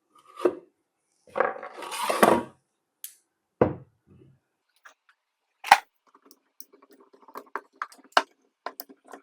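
Hard objects being handled on a work surface: a scrape, a few separate knocks with a sharp one about two-thirds of the way through, then a run of light clicks and clinks near the end.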